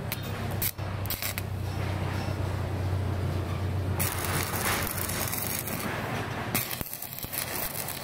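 Stick arc welding on iron rod: the electrode's arc crackles and sizzles over a steady low hum. The crackle grows louder about halfway through and breaks off briefly near the end.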